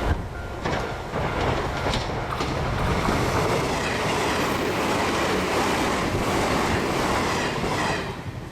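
A train passing close by over a level crossing. Its wheels click over the rail joints in the first couple of seconds, then give a steady, loud rumble of wheel-on-rail noise that falls away about eight seconds in.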